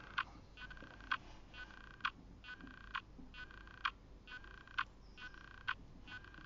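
Quiet, regular ticking: a sharp tick about once a second with a softer, buzzier tick halfway between, over faint room noise.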